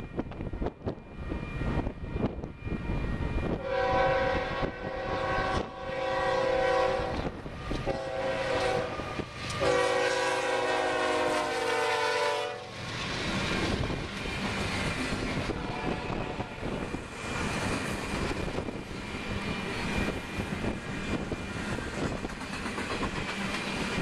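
Union Pacific locomotive air horn sounding four blasts for the grade crossing, the last held longest, as the lead unit closes in. The locomotives and loaded double-stack container cars then roll past with steady wheel-on-rail noise. Wind gusts buffet the microphone.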